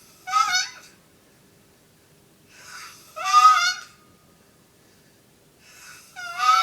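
A sleeping man snoring three times, about three seconds apart. Each snore is a soft breathy rush followed by a loud, high-pitched, wavering tone.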